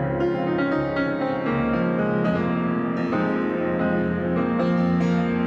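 Grand piano played solo: held chords with a melody over them, new chords struck about every second and a half.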